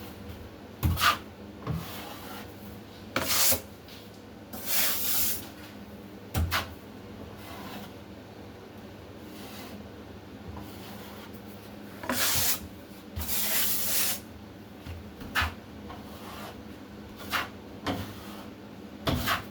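Drywall trowel scraping topping compound across a joint: about ten irregular swipes and pulls, some short and some drawn out over about a second, with an occasional light knock of the blade against the wall.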